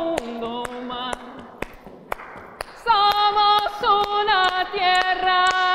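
A woman singing a slow, repeated Spanish refrain in long held notes over a steady tapped beat of about two taps a second. The voice drops out for about a second and a half midway, leaving only the taps, then comes back.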